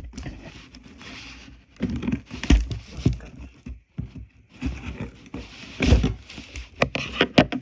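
Rustling and crinkling of a mailed package being opened by hand, with scattered clicks and a few dull thumps, the loudest about two and a half and six seconds in.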